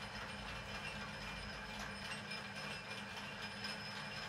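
Lathe's temporarily fitted change-gear train running under motor power on a test run. The gear teeth mesh with a steady, fine clatter over a low, even hum.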